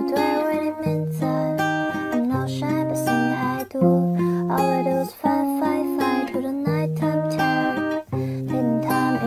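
Background music: a bouncy tune on plucked strings over a bass line that changes note about once a second.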